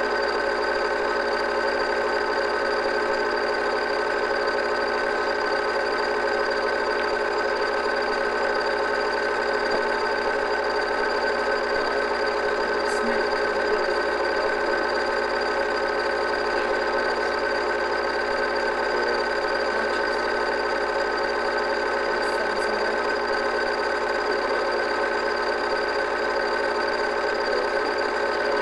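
8mm film projector running: a steady mechanical whir with several constant hum tones, unchanging throughout.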